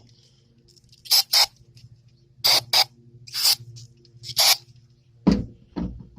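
Aerosol gun-cleaner can sprayed in six short hissing bursts, several in quick pairs, onto jet ski starter parts, followed by two duller knocks near the end.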